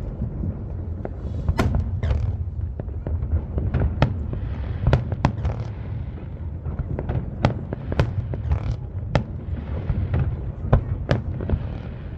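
Aerial fireworks display: a rapid, irregular run of sharp bangs, several a second at times, over a continuous low rumble of booms, with stretches of crackling from the shells.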